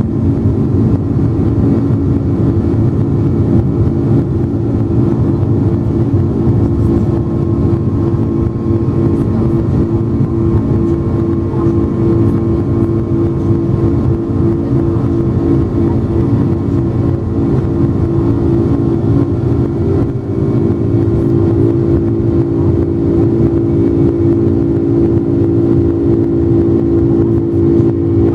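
Boeing 747 jet engines running: a steady low roar with a humming drone of steady tones, which swells somewhat in the last few seconds.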